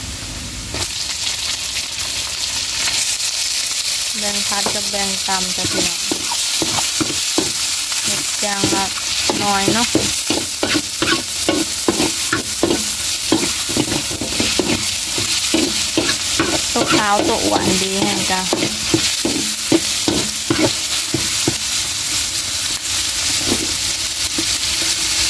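Hot oil sizzling steadily in an aluminium wok while a metal spatula scrapes and knocks against the pan, stir-frying freshwater mussels with chilli and garlic. The spatula strokes come thick and fast from about four seconds in until about twenty seconds.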